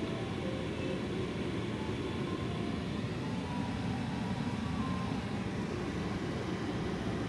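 Steady low rumble of a car heard from inside its cabin as it waits and moves slowly, with faint street noise.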